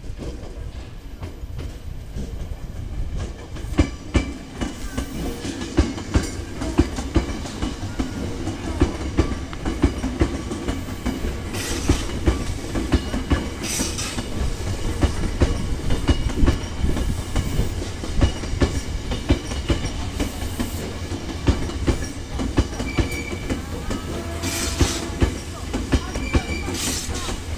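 Tokyo Metro 03 series train rolling slowly by as it pulls into a siding: a steady rumble with the wheels clacking repeatedly over rail joints and points. Brief high wheel squeals sound near the end.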